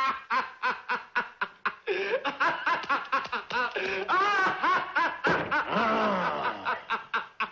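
A man laughing maniacally in rapid staccato bursts, then in longer rising and falling peals.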